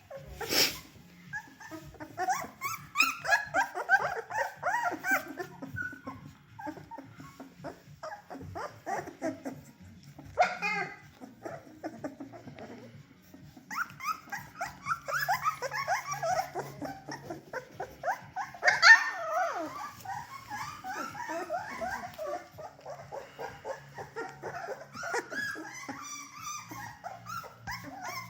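Litter of three-week-old Bernedoodle puppies whimpering and squeaking, with small yips, many short high calls overlapping in bouts and a sharper cry near the end.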